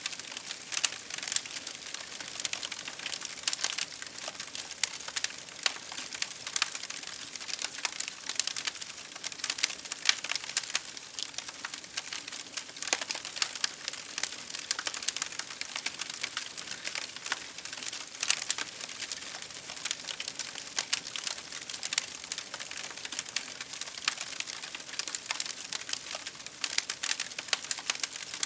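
Fire crackling: a steady, dense run of small sharp snaps and pops over a soft hiss.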